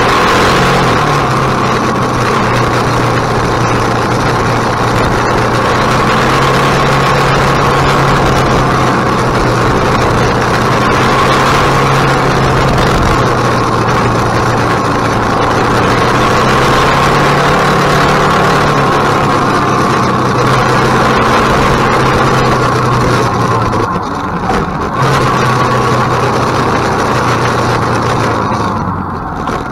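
KTM 1050 motorcycle's V-twin engine running at a steady, even pace under way, with a short dip in level about 24 seconds in and the engine easing off near the end.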